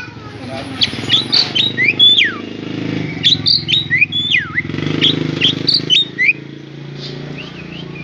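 Caged Javan myna giving runs of sharp whistles and chirps with quick rising and falling glides, in three bursts, growing fainter near the end.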